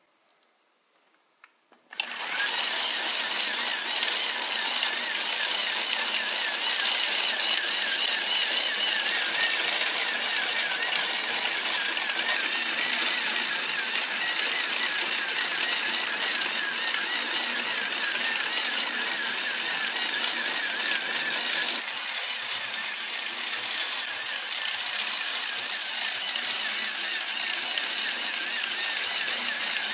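Small electric motor of a plastic building-block toy helicopter starting up suddenly about two seconds in, after a couple of small clicks, then running steadily, its belt-driven plastic gears whirring and rattling as they mesh and turn the rotor.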